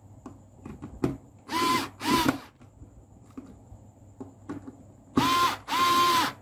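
Cordless drill-driver tightening the top terminal screws of a miniature circuit breaker onto a jumper wire. It gives four short runs of motor whine in two pairs, one about a second and a half in and one about five seconds in, with light clicks between them.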